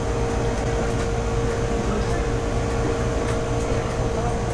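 Steady mechanical hum and low rumble holding one constant tone, like ventilation or refrigeration machinery, with faint light ticks scattered through it.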